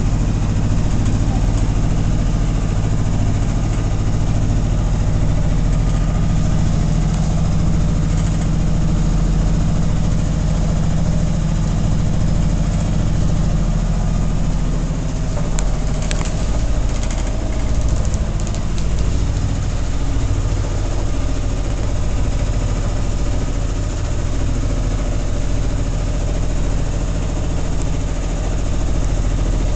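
A sailboat's inboard auxiliary engine running steadily under way, an even low hum that does not change in pitch.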